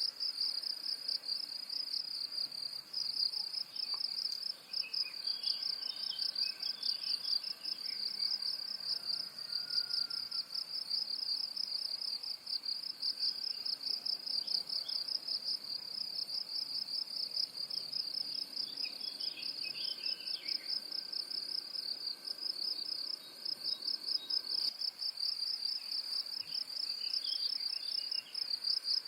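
A cricket chirping without pause in a high, even, pulsing trill. Faint bird chirps come and go behind it a few times.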